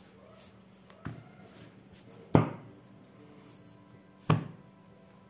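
Deck of cards handled by hand, with three sharp knocks as the cards are tapped against the cloth-covered table; the middle knock is the loudest.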